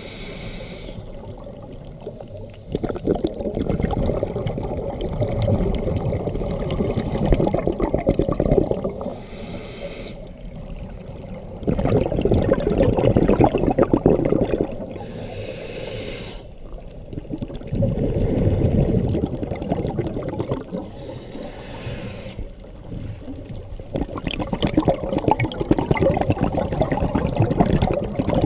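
Scuba diver breathing through a regulator underwater: a short hiss on each inhalation, then a longer, louder rush of exhaled bubbles, repeating about every six seconds.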